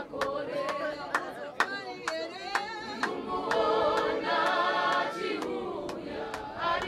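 A crowd of mourners singing a hymn together without instruments, many voices holding long notes, with sharp handclaps scattered through the singing.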